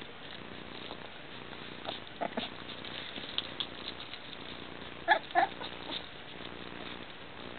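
Coton de Tulear puppies play-fighting, giving short squeaky yips: a faint one about two seconds in and two louder ones in quick succession about five seconds in.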